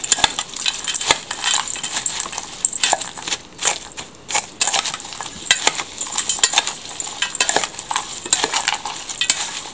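Metal spoon stirring and tossing a filling of diced apples, cranberries and crushed cornflakes in a stainless steel mixing bowl, with irregular clinks and scrapes of the spoon against the bowl.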